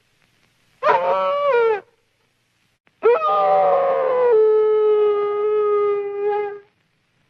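Cartoon bloodhound's howls: a short howl about a second long near the start, falling at its end, then a longer one that starts rough and settles into a steady held note for a few seconds before stopping.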